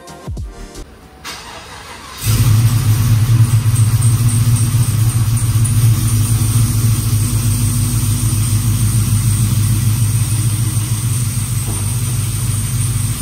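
Cammed L86 6.2-litre V8 of a Chevy Silverado running steadily and loud through true dual 3-inch exhaust with 30-inch Magnaflow mufflers, cutting in abruptly about two seconds in.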